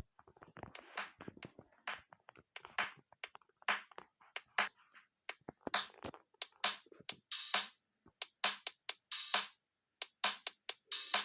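Electronic music with a beat of sharp drum hits and no sustained melody until the very end.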